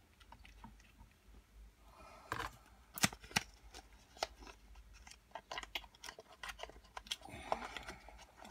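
Nail polish bottles and packaging being handled: a series of sharp clicks and taps, with a short stretch of rustling near the end.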